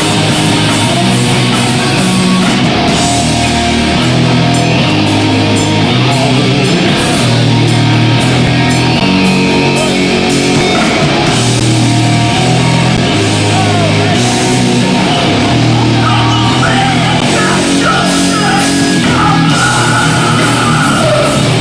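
Hardcore punk band playing live and loud: heavily distorted guitars, bass and pounding drums with crashing cymbals, with yelled vocals at times.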